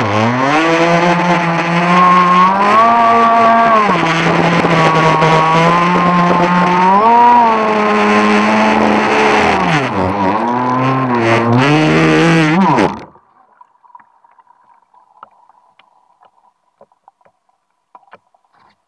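Arrow Shark RC boat's motor running hard, its whine rising and falling in pitch with the throttle, over the rush of water spray along the hull. About thirteen seconds in the motor cuts off abruptly, leaving only faint ticks and small splashes as the boat sits on the water.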